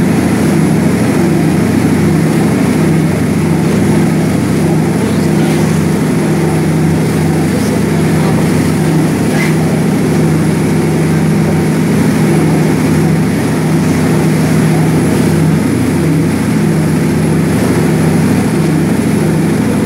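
Passenger riverboat's diesel engine running under way at speed, a steady loud drone, with water rushing and churning along the hull.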